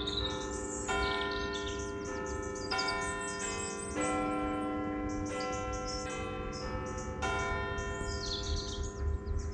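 Church bells ringing, about five strikes of differing pitch each a second or two apart, every one left to hum on. Small birds chirp throughout.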